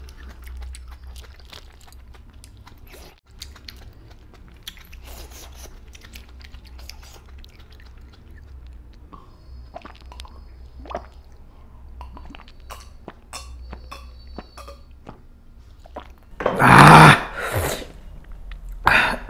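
Close-miked soft chewing and wet mouth clicks, then a loud burp about three seconds before the end.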